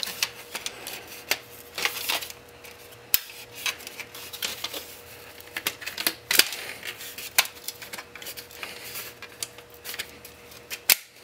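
Irregular plastic clicks, taps and creaks as the plastic front plate of an old satellite cable box is pried and worked loose by hand.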